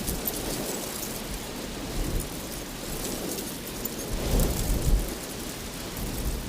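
Steady rushing noise of water outdoors, with low wind buffeting on the microphone that swells about two seconds in and again around four to five seconds in.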